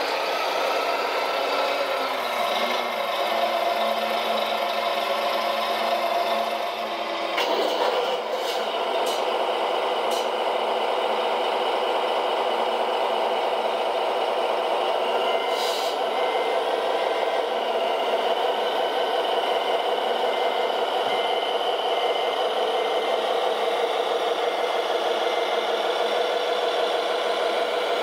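Scale-model RC sound modules playing simulated diesel engine running with rattle: first the Volvo L250G wheel loader, then, after an abrupt change about seven seconds in, the Mercedes-Benz Arocs 6x6 truck. A few sharp clicks follow the change, and a faint regular beeping runs through the middle of the stretch.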